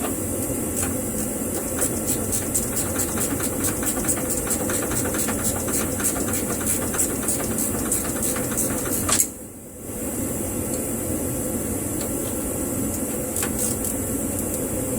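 Ratchet wrench clicking in quick runs while bolts are turned, over a steady background hum, with a brief sudden drop-out a little past halfway.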